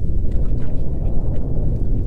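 Wind buffeting the microphone, a loud, uneven low rumble with a few faint ticks over it.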